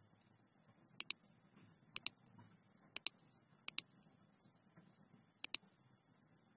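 Computer mouse clicking: five quick pairs of crisp clicks spread about a second apart, over a faint low hum.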